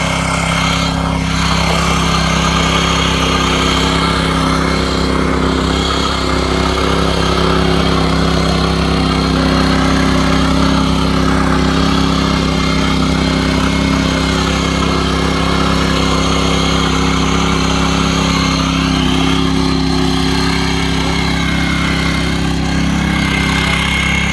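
7.5 HP petrol engine of a mini tiller running steadily at an even speed.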